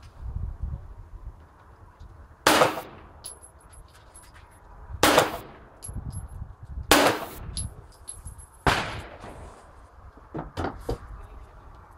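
Four pistol shots, about two seconds apart, each followed by a short echo. A few lighter knocks near the end.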